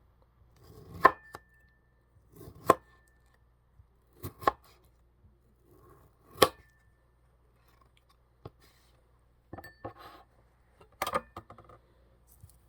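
A knife chopping kiwi fruit against a hard surface: single sharp strikes every couple of seconds, some with a short ring after them, then a quicker run of cuts near the end.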